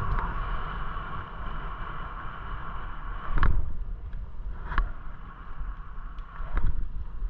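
Bicycle ride on a paved path: steady wind buffeting on the microphone over tyre rumble, with three short sharp knocks about halfway through and near the end.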